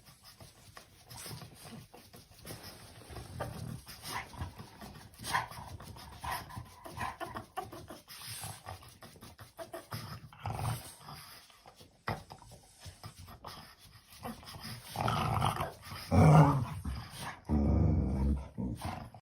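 A dog vocalizing, quiet at first and louder in the last few seconds.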